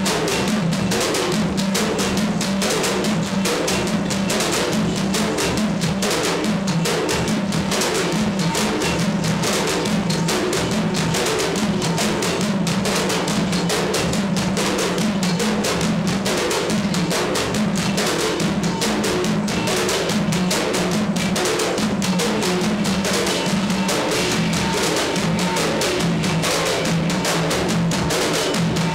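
Kompang troupe beating hand-held frame drums in a fast, unbroken rhythm.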